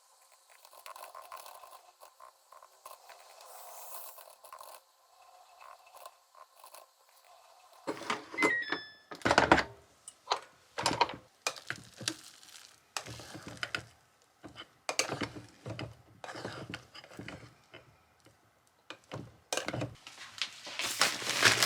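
A run of short knocks and clatters from objects being handled and set down, starting about a third of the way in after a few seconds of faint rustling. A brief high beep sounds just as the knocking begins.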